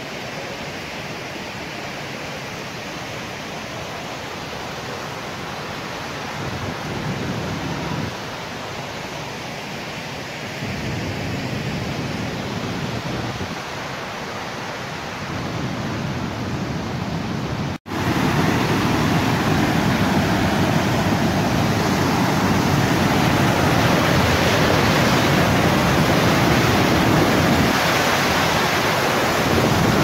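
Waterfall water rushing in a steady, even hiss. It drops out for an instant about eighteen seconds in, then comes back louder and fuller.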